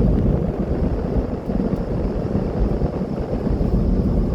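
Steady low rumble of road and wind noise from a Jeep Gladiator Rubicon cruising at about 70 miles an hour.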